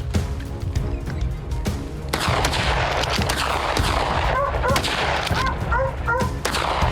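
Hunting dogs yelping in short, repeated rising-and-falling cries from about halfway in, over background music. A couple of sharp rifle shots come in the first two seconds.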